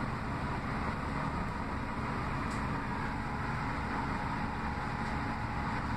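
Orion VII CNG bus's engine and drivetrain running with a steady drone, heard from inside the passenger cabin.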